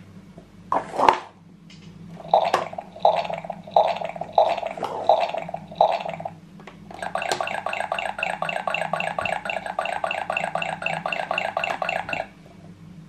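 Electronic sound effects from a battery-operated toy playset's small speaker: about six short pitched bursts, then a steady, rapidly pulsing electronic tune that cuts off suddenly near the end.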